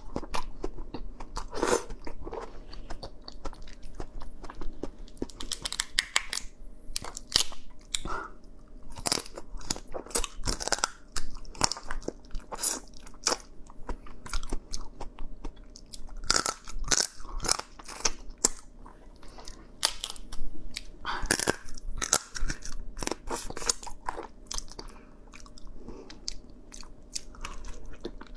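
Close-miked crunching and chewing of crab: shell and leg pieces cracking between the teeth in many sharp, irregular crunches, with wet chewing of the meat in between.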